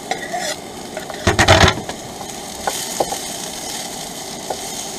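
Potatoes, onions and garlic sizzling steadily in a frying pan, with a wooden spoon stirring them. A short clatter about a second and a half in, then a few light knocks.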